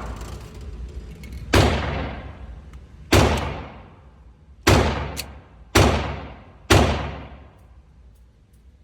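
Glock 45 9mm pistol fired five times in slow, uneven succession, each shot ringing out with a long decaying tail. A sharp, lighter click falls between the third and fourth shots.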